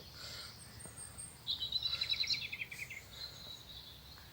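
A songbird singing: a quick trill of high notes, about a second and a half long, that steps down in pitch partway through, with fainter song after it over a quiet outdoor background.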